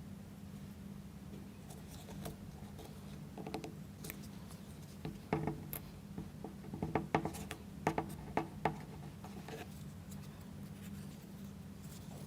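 Faint, scattered clicks and taps of small plywood model parts being handled as toothpicks are pushed through the holes of a wooden wheel and its helper part. The clicks bunch together in the middle, over a low steady hum.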